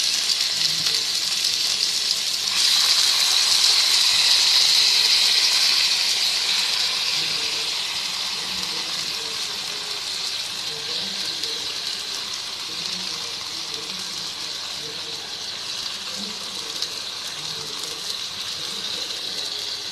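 Damp, cleaned seeraga samba rice sizzling in hot ghee in a nonstick pan, a steady hiss. It grows louder about two and a half seconds in, then slowly fades as the grains' moisture cooks off.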